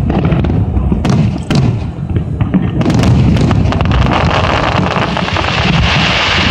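Aerial fireworks shells bursting in rapid succession during a grand finale, with deep booms and sharp bangs; from about four seconds in a dense crackling takes over as the bursts fill the sky.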